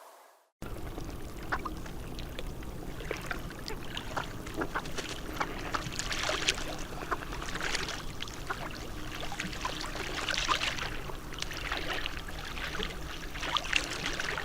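Water splashing and lapping, a steady wash full of small quick splashes and clicks, starting about half a second in after a short silence.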